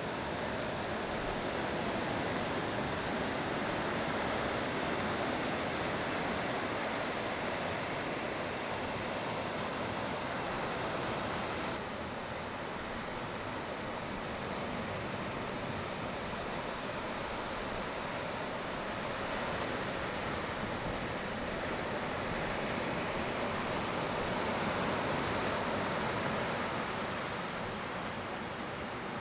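Ocean surf: a steady wash of waves breaking and rolling in, with a slight drop in level about twelve seconds in.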